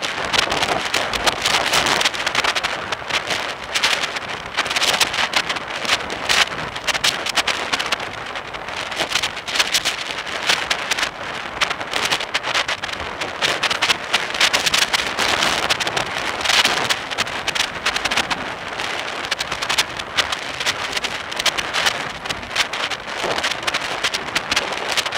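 Loud, uneven wind buffeting on the microphone of a camera travelling along a road, with road traffic underneath.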